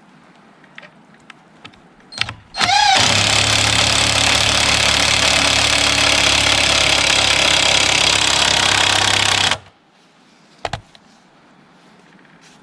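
A motor-driven machine starts with a quick rising whine, runs loudly and steadily for about seven seconds, then stops abruptly. Light knocks and clicks come before it, and one knock comes after.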